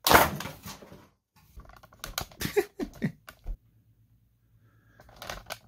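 A spring-powered M0053-1 "Moose" bolt-action mega-dart blaster fires with one sharp, loud report at the very start, its dart smashing into a styrofoam block. A scatter of light knocks and clicks follows over the next couple of seconds, with more faint rattling near the end.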